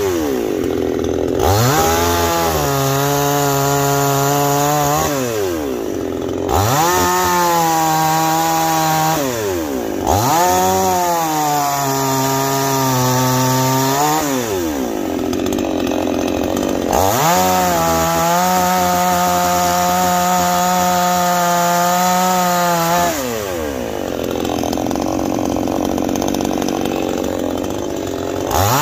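Neo-Tec NCS5800 58cc two-stroke chainsaw, a Zenoah clone, bucking ash logs. It revs up to full throttle, holds high for a few seconds while cutting, then drops back to idle. This happens four times, and a fifth rev-up starts near the end.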